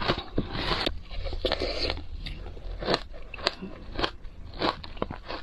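Crunching and chewing of matcha shaved ice, in a run of short crunches about two a second.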